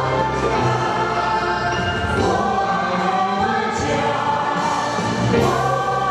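Young male voices singing a Chinese song together into handheld microphones, several sustained parts sounding at once.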